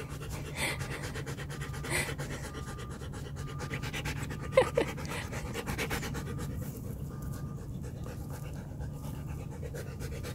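Dog panting steadily at close range, with one brief two-part squeak about halfway through.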